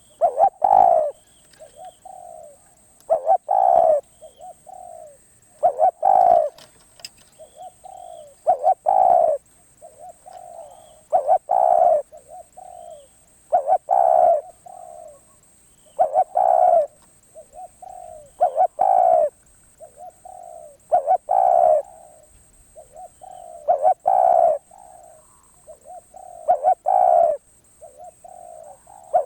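Spotted dove cooing over and over, one phrase about every two and a half seconds, each built around a loud coo with softer coos in between.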